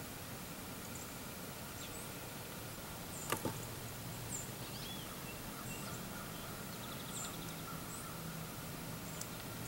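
Outdoor ambience: small birds chirping now and then, with a short warbling call and a quick rattling trill, over a steady faint hum. A single sharp click about three seconds in is the loudest sound.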